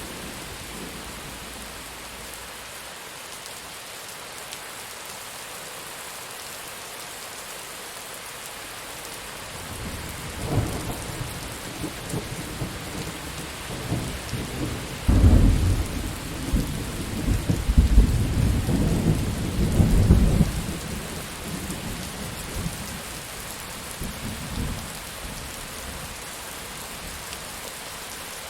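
Steady heavy rain falling, with a roll of thunder that starts rumbling about a third of the way in, swells to its loudest in the middle and dies away before the end.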